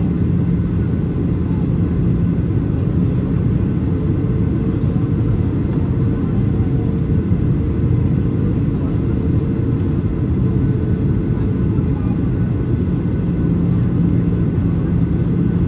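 Steady cabin noise inside a Boeing 737-800 on descent: the drone of its CFM56 turbofan engines and rushing airflow past the fuselage, heavy in the low end, with a steady low hum running through it.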